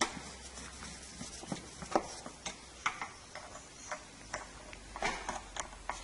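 Irregular light clicks and taps of a screwdriver and metal parts as a motorcycle is put back together, about one or two a second with a short cluster near the end.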